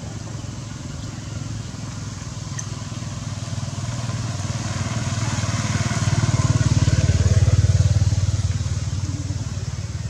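A passing motor vehicle's engine, most likely a motorbike, growing louder over several seconds, loudest about seven to eight seconds in, then fading.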